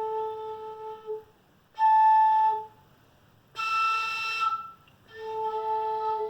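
Mbya Guaraní mimby'i, a small cane (takuapi) flute, blown in four separate notes of about a second each. Harder blowing lifts the same note into higher registers: a low note, one an octave up, a still higher breathy note, then the low note again.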